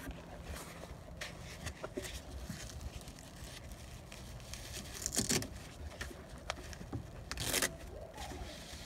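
Scraping, rustling handling noise close to the microphone, with scattered clicks. Two louder scrapes stand out, about five and about seven and a half seconds in.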